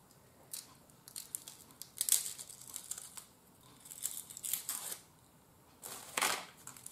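A small fortune cookie being broken apart by hand and its paper fortune pulled out: short bursts of crinkling and crackling, several times with pauses between.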